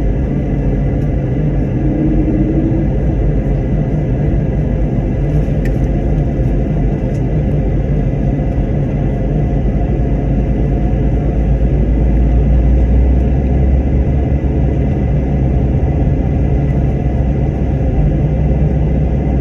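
Steady airliner cabin drone: a low rumble with a faint, constant whine above it.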